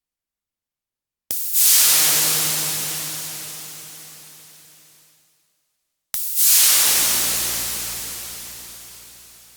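Synthesized recreation of the Gundam beam rifle firing sound, built from vacuum cleaner noise and synthesizers: two identical shots about five seconds apart, each a short click and then a loud hissing blast that fades away slowly over about three seconds.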